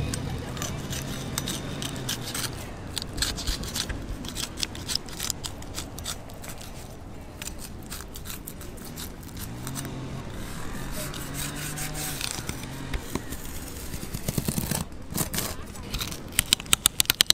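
Kitchen knife slicing along the fin edge of a California halibut on a plastic cutting board, the blade scraping and clicking over the fin bones. A quick run of sharp clicks comes near the end.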